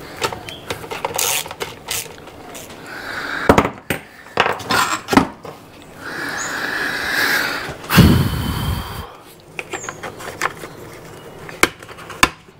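Screwdriver and plastic housing noises as the pull-start cover is screwed back onto a Ryobi two-stroke trimmer. Scattered clicks, scrapes and knocks, with a heavy thump about eight seconds in.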